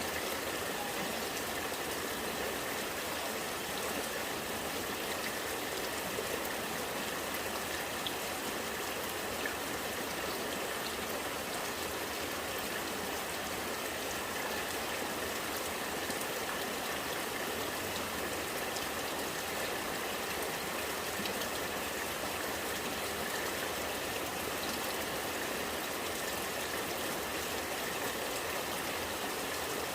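Rainwater gurgling as it runs: a steady trickling flow with scattered faint drips.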